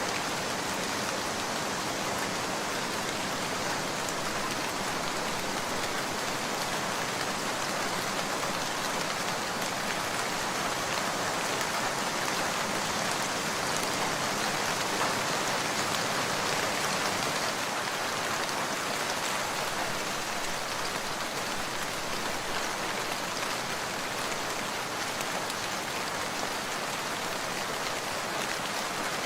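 Heavy rain falling steadily, a dense, even patter of drops that swells slightly around the middle.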